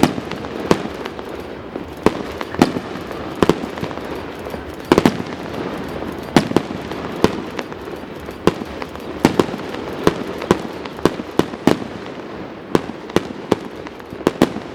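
Fireworks display: an irregular string of sharp bangs, two or three a second, over a steady noisy background.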